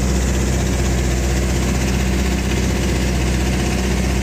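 An engine running steadily at an even pitch, a low hum under a wash of noise.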